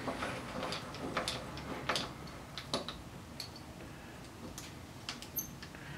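Light, irregular metallic clicks and ticks as a slide on a Grizzly G4000 metal lathe is cranked in by hand, moving the toolpost toward the work; the lathe spindle is not running.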